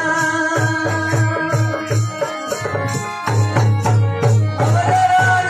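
Instrumental interlude of Rajasthani folk devotional music: a harmonium holding steady notes over a dholak drum beat, with wooden kartal clappers clicking. The drum pauses briefly about two seconds in, then comes back stronger with the clappers about three seconds in.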